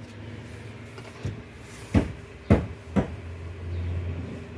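Hard knocks of objects set down or bumped while pots are handled: a soft one, then three sharp clunks about half a second apart, followed by a brief low hum.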